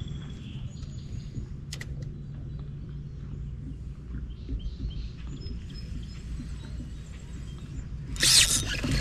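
Outdoor river ambience: faint bird chirps over a steady low rumble, with a single click about two seconds in. A sudden loud rush of noise starts near the end.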